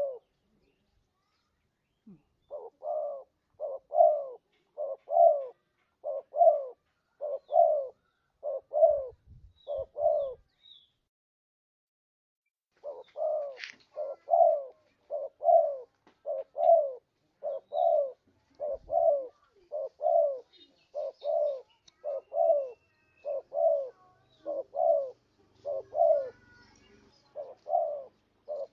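Spotted dove (tekukur) cooing, a lure call: short coos repeated in a steady series, broken by two brief pauses, once near the start and once about halfway through.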